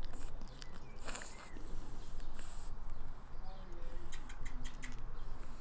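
Pug puppy snuffling and rustling about in lawn grass, with a quick run of small clicks about four seconds in.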